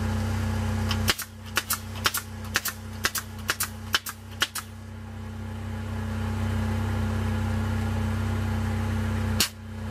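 Pneumatic air nailer firing into a wooden board: about a dozen sharp shots in quick succession over a few seconds, and one more near the end. The Jeep's engine runs steadily at idle underneath.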